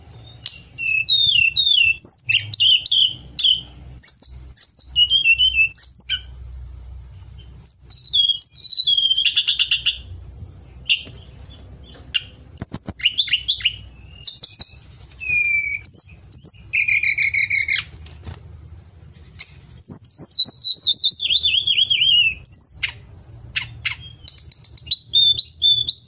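Hill blue flycatcher singing vigorously: rapid phrases of high, sliding whistles and trills in bursts of a few seconds, broken by short pauses.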